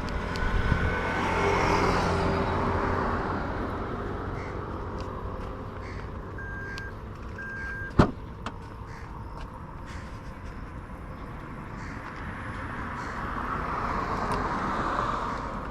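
Street ambience with vehicles passing, swelling near the start and again near the end. Midway come two short electronic beeps at one pitch, followed within a second by a single sharp clunk.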